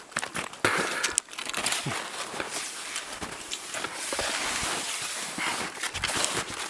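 Footsteps crunching in snow: irregular crunches over a rustling background.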